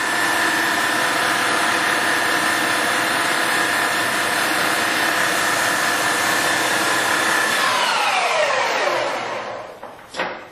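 Servo SE1640 16.5 x 40 lathe spindle running steadily at its top speed of 2,000 RPM with a whine, then braked about seven and a half seconds in, its pitch falling as it spins down to a stop over about two seconds. The quick stop shows the spindle brake is nice and responsive.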